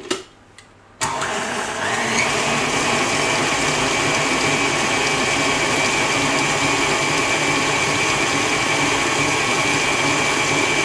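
KitchenAid Artisan stand mixer switched on about a second in and running steadily at about medium speed, its flat beater creaming melted butter into brown and white sugar. A steady high motor whine settles in as it comes up to speed.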